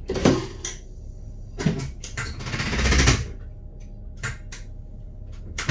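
A series of sharp knocks and clicks with a longer rustling scrape about two and a half seconds in, like things being handled and shut.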